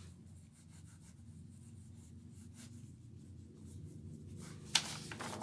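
Faint scratching of a graphite pencil on paper, over a low steady background hum. Near the end a sudden rustle as the paper sheet is handled.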